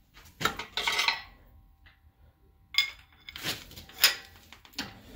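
Metal parts and tools clanking and clinking. A ringing clank comes about half a second in and another near three seconds, then a few sharp knocks.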